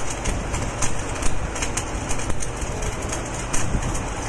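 Electric arc welding on a large spiral pipe: a steady crackling hiss with irregular sharp pops.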